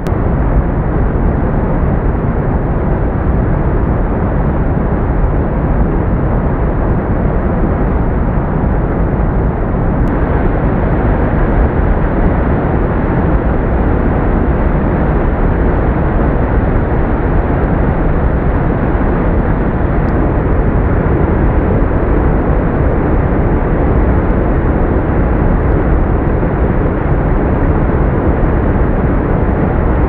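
Brook water rushing and cascading over rocks in a waterfall: a steady, deep, muffled rush with nothing high-pitched in it.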